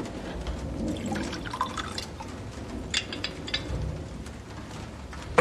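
Liquor poured from a glass decanter into glass tumblers, with a few light clinks of glass.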